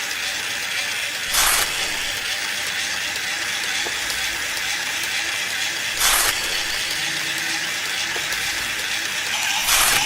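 A small geared mechanism whirring steadily, with three short, louder rasping bursts spaced a few seconds apart.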